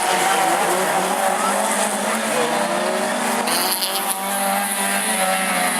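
Autograss racing cars running hard past the microphone, several engine notes overlapping and rising and falling in pitch as the drivers change gear and lift off, over a steady haze of tyre and track noise.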